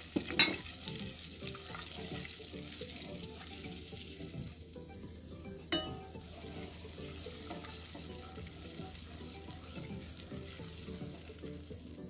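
Hot ghee sizzling steadily in a stainless steel pot as all-purpose flour and chopped nuts fry in it, stirred with a spatula. Two sharp taps stand out, one just after the start and one about halfway.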